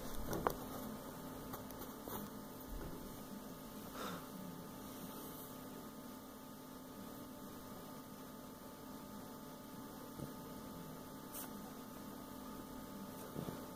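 Faint, steady electrical hum in a quiet room, broken a few times by brief soft clicks.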